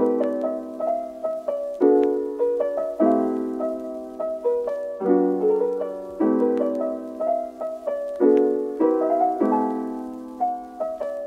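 Background music: soft piano chords struck and held, changing every second or two, with no beat.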